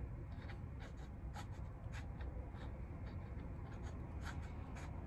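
Keyless chuck of a cordless drill being turned slowly by hand to open its jaws: faint scratchy rubbing with scattered light clicks, irregular and a few a second.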